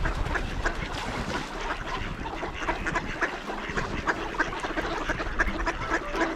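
A flock of ducks quacking, many short calls overlapping one another.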